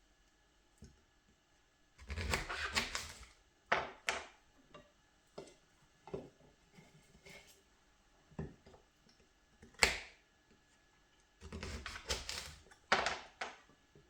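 Irregular knocks, taps and short clattering rustles of kitchen things being handled, busiest about two seconds in and again near the end, with one sharp knock in between.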